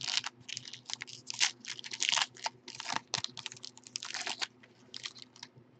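Foil trading-card pack wrapper crinkling and tearing as it is pulled open by hand: a quick run of irregular short rustles and crackles that stops about five seconds in.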